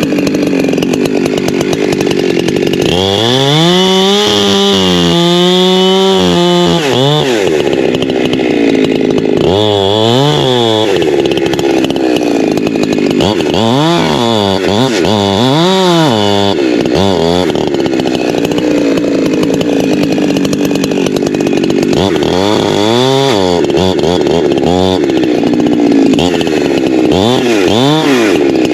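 Holzfforma G372XP Pro two-stroke chainsaw running hard while cutting into a tree, its engine pitch dipping and rising again several times.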